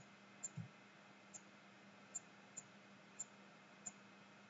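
Faint computer mouse clicks, about six short sharp ones spread unevenly over a few seconds, over near-silent room tone, with one soft low thump about half a second in.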